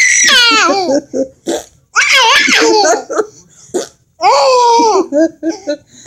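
Baby laughing hard in three high-pitched bursts. Each burst slides down in pitch, and short pauses fall between them.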